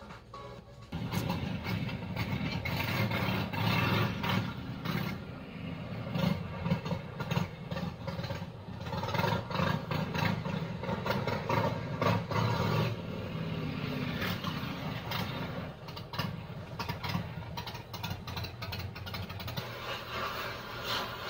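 Engine of a home-built vehicle starting about a second in and running, its level rising and falling.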